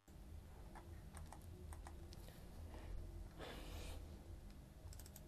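Faint scattered clicks of a computer mouse and keyboard, with a quick cluster of several clicks near the end, over a low steady hum. A short soft rush of noise comes about three and a half seconds in.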